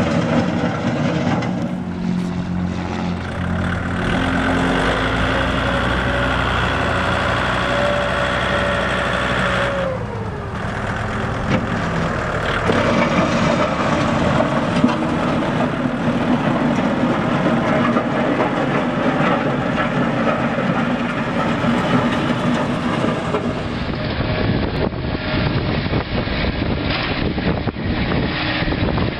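Kubota tractor's diesel engine running as the loader tractor drives, its engine note dropping about a third of the way through. Near the end the sound switches to a second Kubota tractor's engine running as it drives.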